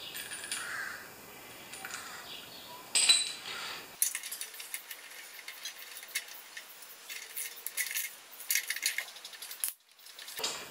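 Metal clinks and a run of quick, irregular small clicks from a spark plug socket wrench as a spark plug is fitted into a lawn mower's Honda engine. There is one sharper clink about three seconds in.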